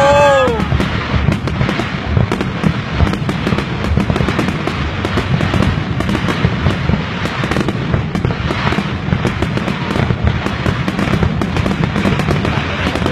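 Fireworks going off in a dense, continuous barrage of crackling and popping. A short whistling tone rises and falls at the very start.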